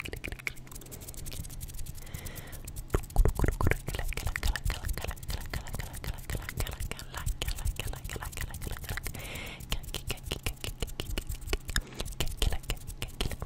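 Fast ASMR mouth sounds right at the microphone: rapid wet clicks and smacks, several a second, with a couple of short breathy hisses.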